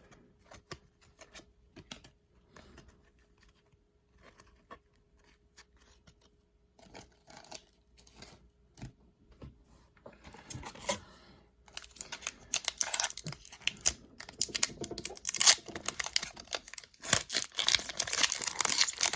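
Faint scattered clicks of trading cards being handled, then from about twelve seconds in the loud crinkling and tearing of a foil hockey-card pack wrapper being opened.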